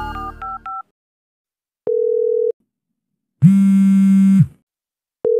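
Phone-call sound effects: a few quick keypad dialing beeps at the start, then a short steady tone, a louder buzzing tone about a second long, and a steady tone that starts near the end: a call being placed that goes unanswered.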